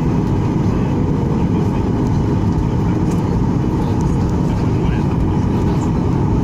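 Cabin noise inside a Boeing 737-800 taxiing, heard from a seat over the wing: a steady low rumble from its CFM56 engines at taxi power and the airframe rolling along the taxiway.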